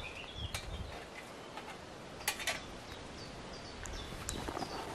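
Small birds chirping, short falling notes repeated over and over. A couple of sharp clicks stand out about two and a half seconds in.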